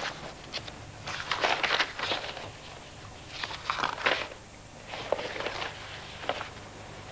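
Sheets of paper rustling and crinkling in several short bursts as papers on a desk are leafed through and shuffled, over a faint steady low hum.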